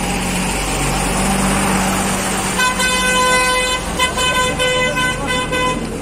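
Vehicle horn honking about two and a half seconds in: one long blast, then a few short toots, over steady street traffic noise.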